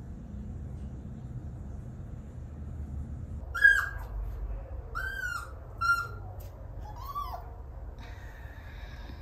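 F1 mini Goldendoodle puppy whining, four short high cries about a second apart starting partway through, over a low background hum. This is a newly crated puppy crying at night when it wakes alone.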